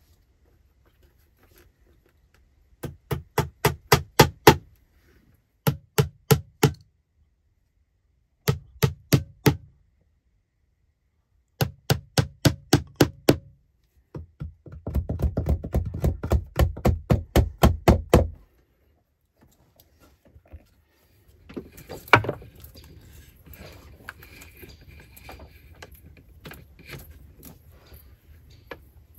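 A hammer tapping small nails into log wood, fastening an electrical cable, in several quick runs of strikes, about four or five a second, with short pauses between runs. Quieter handling and rustling follow near the end.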